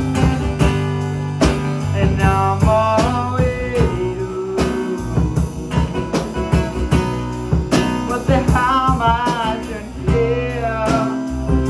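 Live band playing: a man singing over a strummed acoustic guitar and a drum kit, with sung phrases coming and going over a steady beat.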